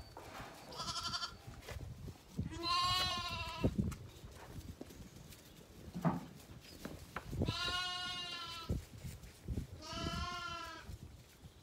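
Zwartbles lambs bleating: three long, wavering bleats of about a second each, with a fainter, higher bleat about a second in.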